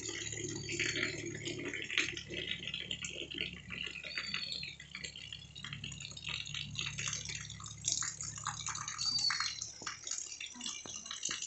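Rain falling, heard as dense, irregular drips and splatters, with a faint low hum underneath for most of it.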